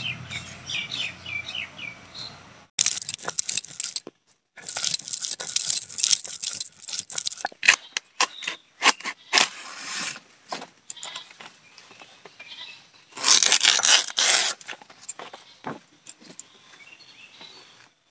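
Birds chirping for the first couple of seconds, then large banana leaves rustling as they are handled and shaken, in several loud bursts with the biggest about two-thirds of the way through.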